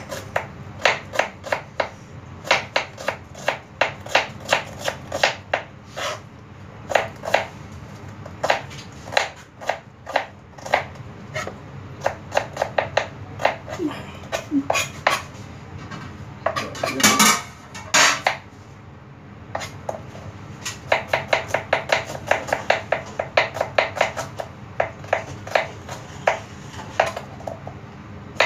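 Kitchen knife slicing red onions on a plastic cutting board: runs of quick, sharp knocks, a few to about five a second, with short pauses between runs. About two-thirds of the way through there is a louder noise lasting about a second.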